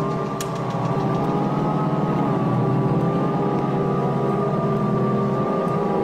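Steady, droning low tone with many overtones from a 1977 Halloween sound-effects record, its pitch wavering only slightly, with a vinyl click about half a second in.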